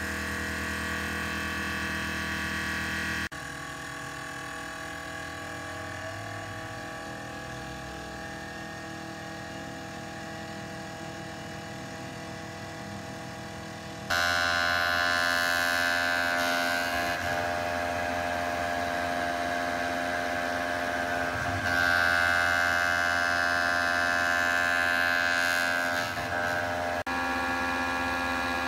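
Steady mechanical whine and hum of running machinery, most likely a small machine tool, in several clips that change abruptly three times.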